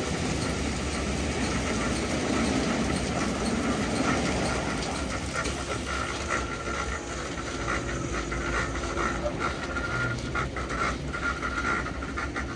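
Istobal M12+ rollover car wash running its second wash with fresh water: CarLite cloth brushes spinning over the car under water spray, with the gantry drives running. The heavy wash noise eases about halfway through, leaving a steady whine with rapid light slapping.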